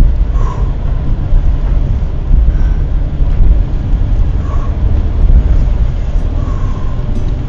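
Car driving and accelerating on a wet, slushy road, heard from inside the cabin: a loud, steady low rumble of tyre, road and engine noise.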